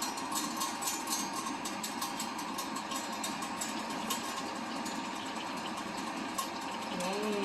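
Pork belly sizzling and crackling as it fries in its own fat in a Saladmaster pan, with no oil added.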